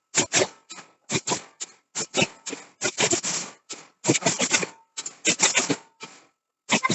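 Rapid series of sharp hammer blows on steel, in uneven clusters of two to four strikes, with a faint metallic ring after them.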